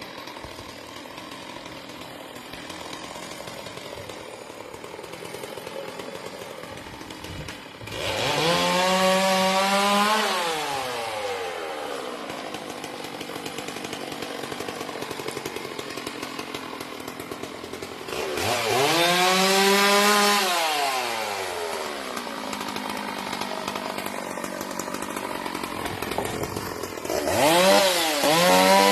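Two-stroke chainsaw idling, then revved up three times: about 8 seconds in, about 18 seconds in, and near the end. Each time the pitch rises sharply, holds for a couple of seconds, then falls back to idle.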